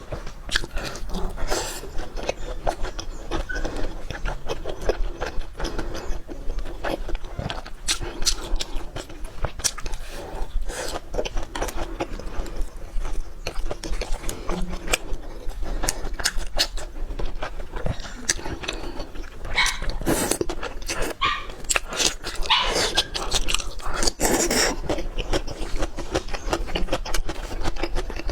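Close-miked chewing and lip smacking of a person eating meat, a dense run of wet clicks and smacks with louder bursts about 20 and 24 seconds in.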